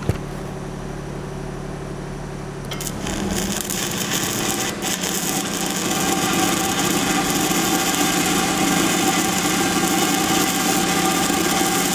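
Power grinder working on steel pipe, a steady abrasive whine that starts about three seconds in over a low steady hum.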